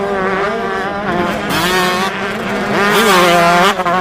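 Motocross dirt-bike engines revving on a dirt track. The pitch climbs and drops repeatedly as the throttle is opened and closed, and it is loudest about three seconds in.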